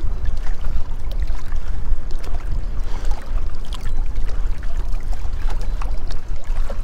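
Wind rumbling on the microphone, with choppy water lapping and slapping against the boat's hull in many small splashes.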